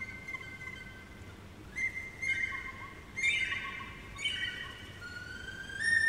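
A high, flute-like wind instrument playing a slow melody of long held notes with slides between them, getting louder about halfway through.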